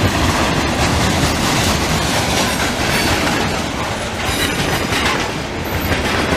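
Canadian Pacific freight cars rolling past at close range: a loud, steady rumble and clatter of steel wheels on the rails.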